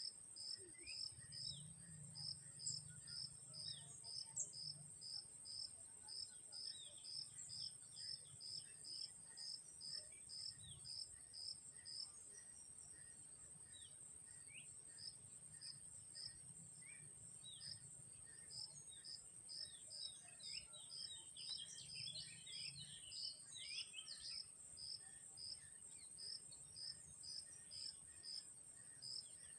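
Crickets chirping in an even rhythm, about two to three chirps a second, over a continuous high insect trill. Short bird chirps are scattered throughout, busiest about three-quarters of the way in.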